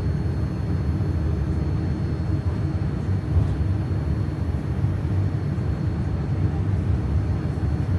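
Steady low rumble of a Boeing 787-9 airliner heard from inside the cabin, with faint high steady tones above it.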